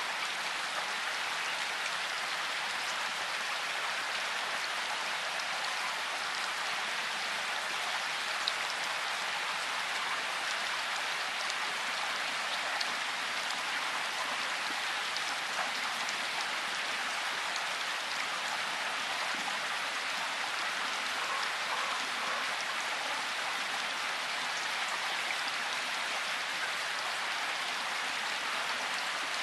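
Vehicle tyres rolling over a loose gravel lane: a steady crackling hiss of crunching stones, with a few sharper clicks from individual stones.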